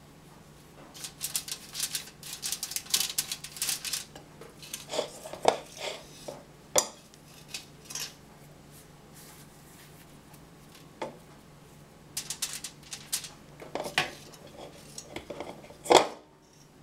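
Metal spoon scraping and clinking against a stainless-steel mixing bowl as stiff brownie dough is scooped out, in several bursts of scrapes and sharp clinks with a quiet gap in the middle. A low steady hum runs underneath.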